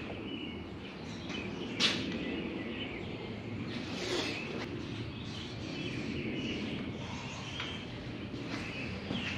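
Light metallic clicks of roller lifters being pulled from the lifter bores of a 5.7 Vortec small-block V8 and handled, the sharpest about two seconds in, over a steady background hiss.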